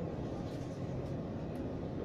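Steady low rumble inside a Tobu 10050 series commuter train car, with faint steady tones.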